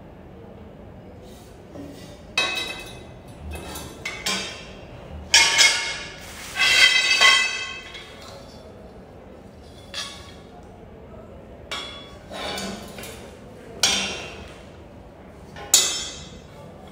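Metal tubes and fittings of a cloth stand knocking and clinking together as the stand is assembled: a series of sharp metallic knocks, some ringing briefly.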